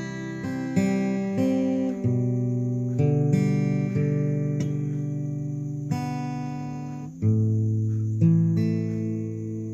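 Background music: an acoustic guitar picking notes and chords, a new one struck about every second and left to ring and fade.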